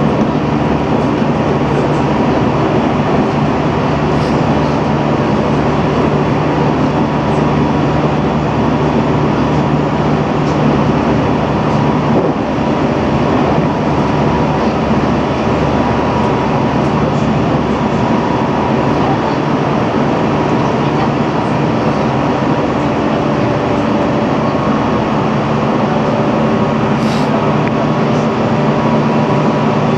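JR Central 313 series electric train running steadily at speed, heard from inside its leading motor car: continuous rail running noise with a steady motor and gear hum.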